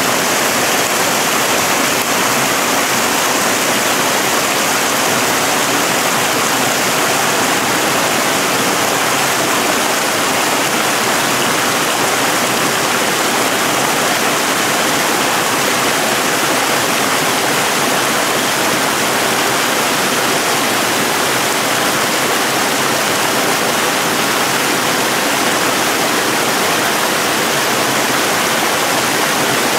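Small mountain stream cascading over rocks in a series of little waterfalls: a steady, loud rush of falling water.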